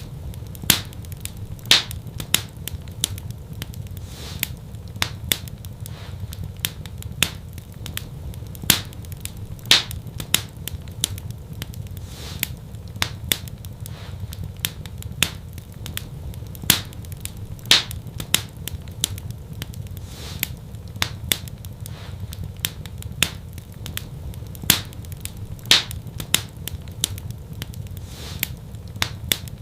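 Wood fire crackling in a fireplace: irregular sharp snaps and pops, a few of them louder than the rest, over a steady low rumble of the flames.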